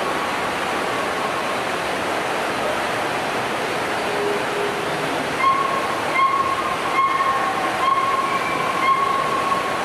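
Steady rushing water of a waterfall. From about halfway through, a clear whistled call repeats about once a second over the rush.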